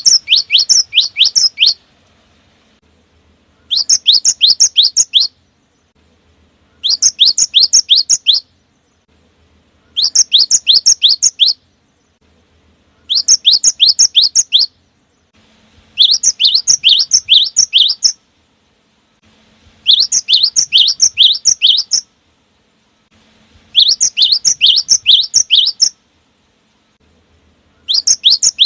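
Cinereous tit (gelatik batu) singing: bouts of about eight rapid, sharp, high notes, each bout lasting a second or two and repeated roughly every three seconds.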